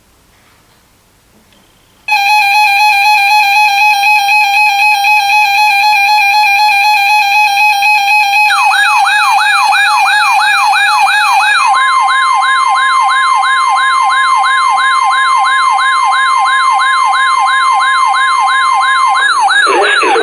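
Weather radio alert alarm: after a couple of seconds of faint static, a loud steady buzzy tone switches on, and about eight seconds in a fast warbling siren joins at roughly three wails a second. Around twelve seconds in the buzzy tone gives way to a steady pure tone that stops shortly before the end while the warble keeps going.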